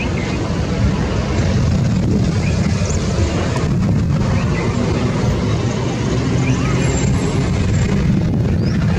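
A steady low rumble with a noisy hiss above it, and a few faint, short high chirps.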